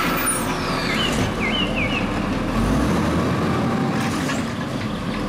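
Automated side-loader garbage truck's diesel engine running while its hydraulic arm lifts a wheeled trash cart, the engine rising a little about two and a half seconds in, with a few short squeaks between one and two seconds in.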